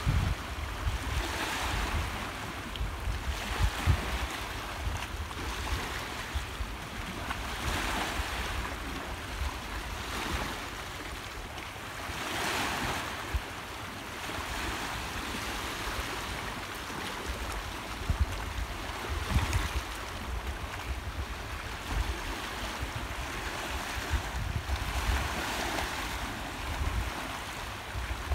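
Small sea waves washing in over a rocky reef shelf and shallows, the hiss of each wash swelling and fading every few seconds. Wind buffets the microphone as a low rumble.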